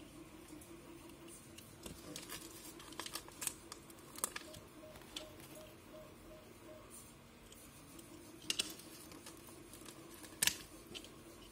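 Handling noises as adhesive dots are peeled from a plastic backing sheet and pressed onto small black plastic SMD tape holders: scattered sharp clicks and taps, the loudest about four, eight and a half and ten and a half seconds in, over a faint steady hum.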